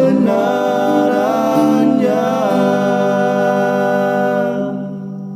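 Closing of a sung gospel song: voices end on a long held note that fades out near the end.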